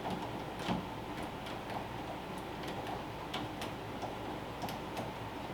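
Light, irregular clicks, about two or three a second, from a screwdriver working the screws of a lever door handle.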